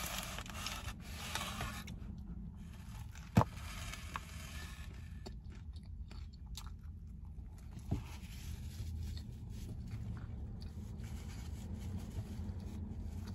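Food packaging rustling and scraping as a takeout meal is handled and eaten. There is a sharp click about three and a half seconds in and a smaller one about eight seconds in, over a low steady rumble.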